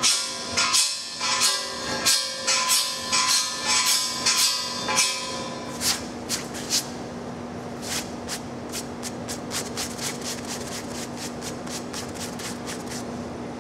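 A metal paint scraper scraping black adhesive coating off a steel pipe in hard, repeated strokes of about two a second, each setting the pipe ringing. After about five seconds the strokes stop, a few more follow, then a run of lighter, quicker strokes. A steady low hum runs underneath.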